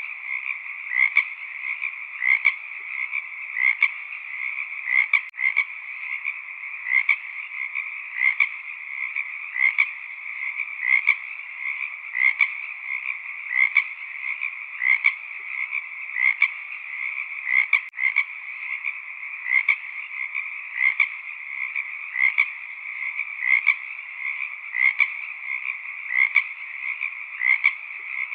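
A frog chorus: a dense, steady calling, with louder individual calls standing out about every three-quarters of a second.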